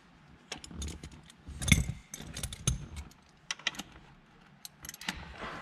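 Irregular metallic clicks and clinks of a hand-held Torx tool working the bolts of a short-shifter mount as they are tightened, loudest about two seconds in.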